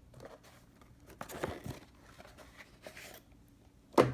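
Packaging being handled and crinkled in bursts of rustling, then a sharp knock with a brief ringing tail near the end.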